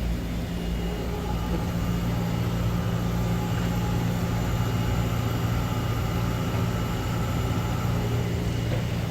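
Fast wire EDM machine running steadily with a constant low hum and a faint high steady tone over it.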